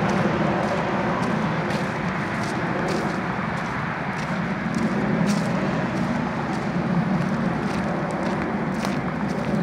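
Footsteps crunching through dry fallen leaves, about two crackling steps a second, over a steady rushing background noise.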